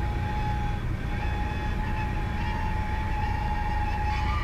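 Cessna 172 cockpit noise as the plane touches down and rolls out: the engine and airframe make a steady low rumble. A thin steady high tone runs over it and breaks off briefly about a second in.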